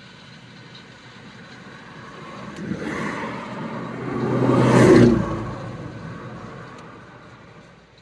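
A road vehicle passing close by: engine and tyre noise swell to a loud peak about five seconds in, drop in pitch as it goes past, and fade away.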